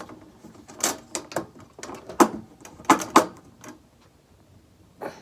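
Irregular sharp metal clicks and clinks, about eight, from a metal-on-metal fitting of an Ikea bed frame being worked back into place.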